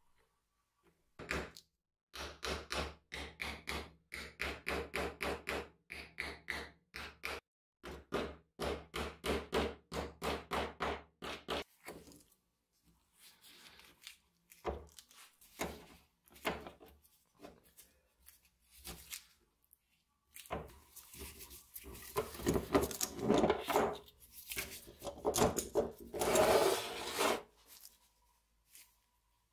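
Small clamp being tightened on a cleaver's freshly glued wooden handle scales: a fast run of clicks for about ten seconds. It is followed by scattered knocks, and then by rubbing and handling noise in the second half.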